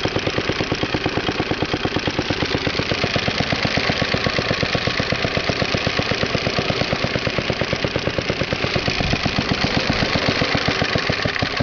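Briggs & Stratton 5S single-cylinder four-stroke engine on a 1953 Toro Sportlawn lawnmower running steadily, with a fast, even beat of exhaust pulses.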